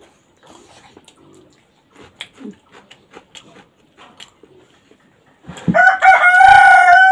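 Faint smacks and clicks of people eating by hand, then about five and a half seconds in a rooster crows loudly: one long, steady call that runs on past the end.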